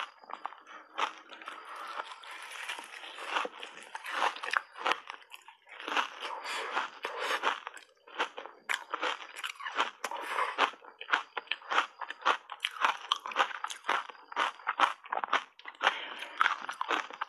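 A mouthful of reshaped ice coated in matcha powder being crunched and chewed, with dense sharp cracks between wetter, hissier stretches and a brief pause about eight seconds in.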